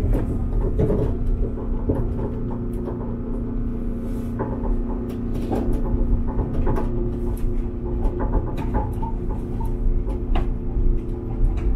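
Inside a Chiba Urban Monorail car, a SAFEGE-type suspended monorail on rubber-tyred bogies, running along its overhead beam: a steady low rumble with a constant hum, and scattered clicks and knocks.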